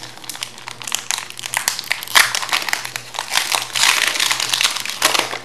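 Foil wrapper of a Pokémon TCG Brilliant Stars booster pack crinkling in the hands as the pack is worked open, a dense irregular run of crackles.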